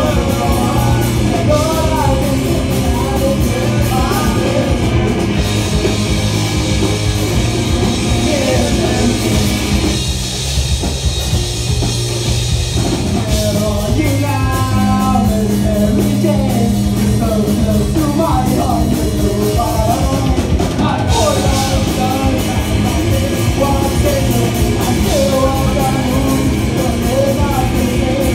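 Live punk rock band playing: a singer over electric guitar, bass guitar and drum kit. The cymbals thin out about five seconds in, the band drops back briefly around ten seconds, and the full kit with cymbals comes back in about twenty-one seconds in.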